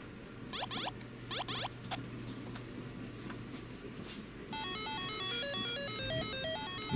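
A simple synthesized melody of stepped beeping tones, ringtone-like, starting about four and a half seconds in. Before it come two quick sweeping chirps about a second apart, over a low steady hum that fades out around four seconds.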